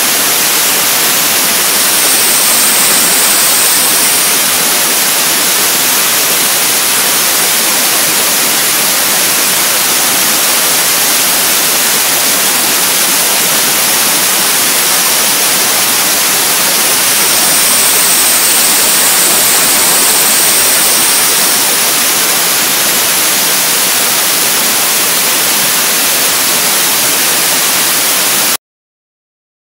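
Compressed air hissing loudly and steadily through a vortex tube, its cold outlet blowing chilled air onto a thermometer probe. The hiss swells slightly twice and cuts off suddenly near the end.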